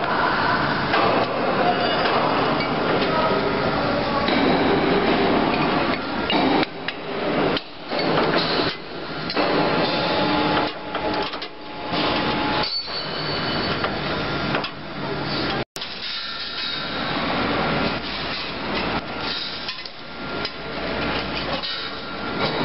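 Chain link fence weaving machine running in a workshop: a continuous metallic clatter with many irregular knocks. The sound cuts out for an instant about two-thirds of the way through.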